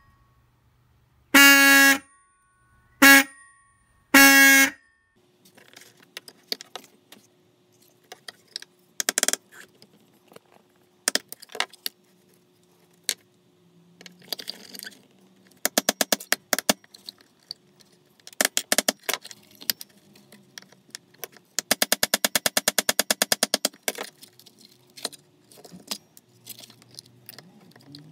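Old Clear Hooters electric car horn from an Austin 1300 sounding three short blasts as its wires are touched to a battery. Then a run of sharp metallic taps, in quick sped-up clusters, as a hammer strikes a punch on the horn's metal casing to take it apart.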